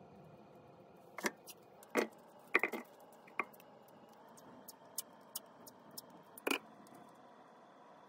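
Handling noise: a few short, sharp clicks and taps, some in quick pairs, as a shift knob is worked with a thin wooden stick.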